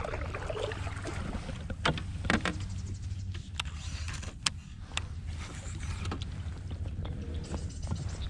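Scattered sharp clicks and knocks of fishing gear being handled against a plastic fishing kayak, over a steady low rumble.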